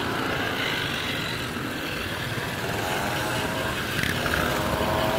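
Motorcycles and scooters riding past one after another, their engines running together, with one engine revving up in the second half.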